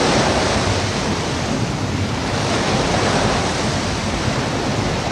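Sea surf: a steady rush of waves washing in, swelling and easing slowly, with no music or voice.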